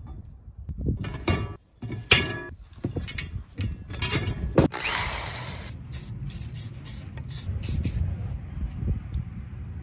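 Thin stainless steel sheets clattering and ringing as they are handled and laid on a stack, then an aerosol can spraying: one longer spray about five seconds in, followed by a quick series of about six short bursts.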